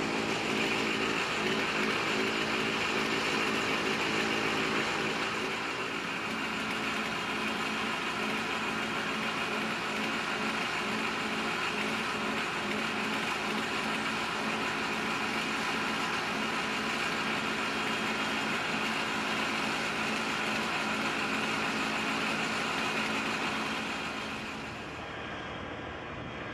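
Engine of an ЕДК-1000/1 railway crane running steadily under load while it hoists a derailed gondola car; it drops in level and changes near the end.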